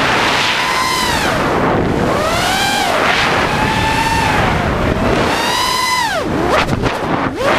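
An ImpulseRC Reverb FPV quadcopter's brushless motors and propellers whine, their pitch rising and falling as the quad manoeuvres, with wind rushing over the onboard microphone. Near the end the pitch drops sharply and swoops back up several times.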